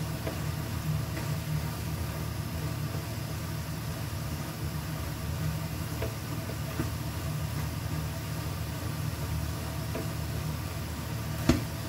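Minced beef cooking in a heavy iron pan, stirred with a silicone spatula, over a steady low hum from the stove, with a few light taps and one sharp knock near the end.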